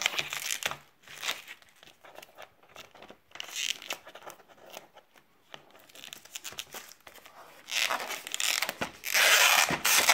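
Clear plastic shrink-wrap being torn and peeled off a DVD hardbox by hand, crinkling on and off, with a longer, louder stretch of tearing and crinkling near the end.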